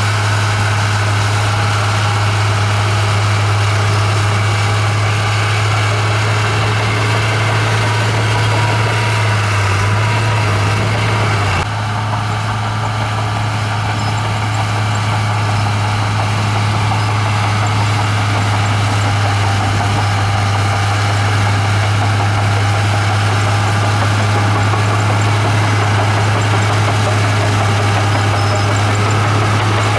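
Komatsu bulldozer's diesel engine running steadily with a deep, even drone, which shifts briefly about twelve seconds in.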